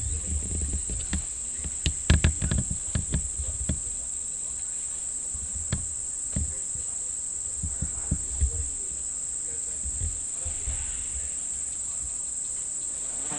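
Steady high-pitched drone of insects, crickets or cicadas, with scattered clicks and low thumps, most of them in the first few seconds.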